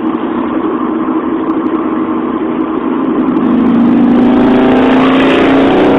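Road and engine noise inside a moving car's cabin, with an engine hum that grows louder and rises slightly about halfway through.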